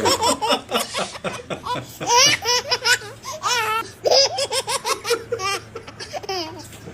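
Hearty, high-pitched laughter in quick repeated bursts, fading off toward the end.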